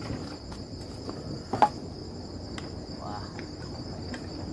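Crickets chirping steadily in a high, even tone, with one sharp clink of cookware about a second and a half in.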